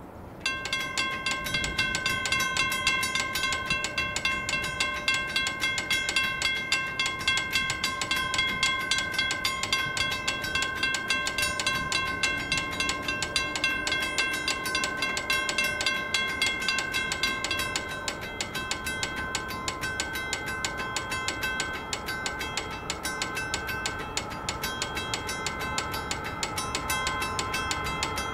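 Two Western Cullen Hayes mechanical level-crossing bells start ringing together as the crossing activates, a rapid, steady stream of strokes. About two-thirds of the way through the louder bell stops, leaving the weaker one ringing on.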